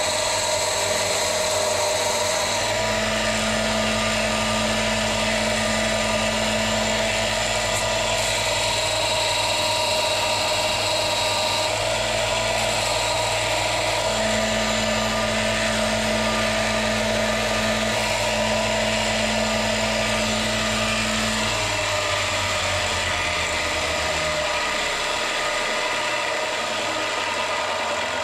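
Parkside combination bench grinder and belt sander running steadily while a worn drill bit is ground against the sanding belt to sharpen its tip, steel rasping on the abrasive belt. The motor's low hum fades near the end.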